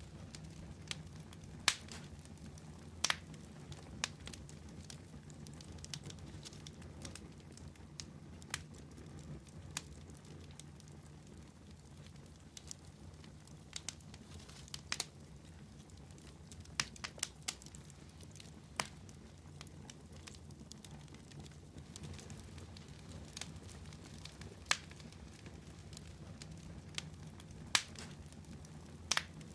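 Wood campfire burning, with sharp irregular crackles and pops every second or few over a steady low rumble of the flames.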